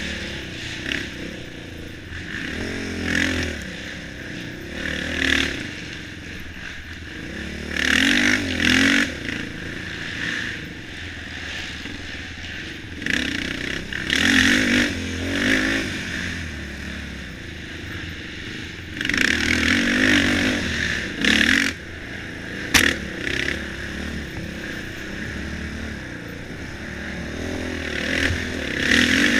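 Off-road race vehicle's engine running hard, swelling into loud revs several times as the rider gets on the throttle, with rattling and scraping as the machine bounces over a rocky trail. A single sharp knock stands out about twenty-three seconds in.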